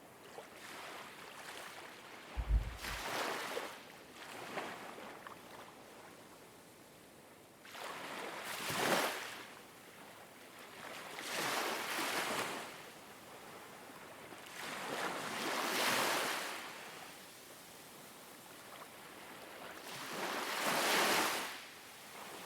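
Ocean waves washing in, a slow swell of surf about every four seconds. A brief low thump about two and a half seconds in.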